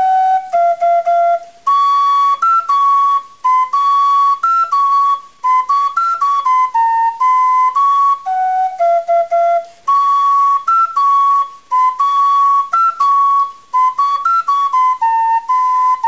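Solo flute playing a light melody of short and held notes in brief phrases, with no accompaniment.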